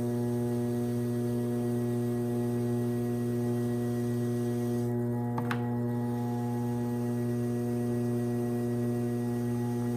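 Steady electric hum of a spinning pottery wheel's motor, even in pitch throughout, with a single light click about five and a half seconds in.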